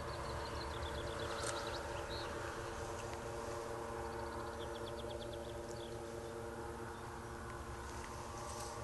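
Distant paramotor (powered paraglider) engine droning steadily overhead. A small songbird trills twice, once near the start and again about halfway through.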